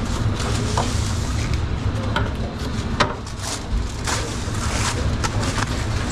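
Pizzeria kitchen work over a steady low hum: scattered knocks, scrapes and rubs of handling, with one sharp click about three seconds in.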